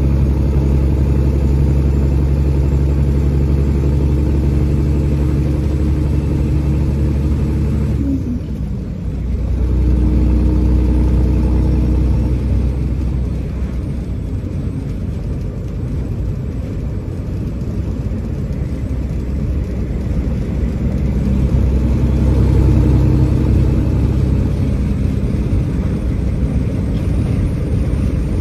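Semi truck's diesel engine running steadily, heard from inside the cab. Its note dips briefly about eight seconds in, then picks back up.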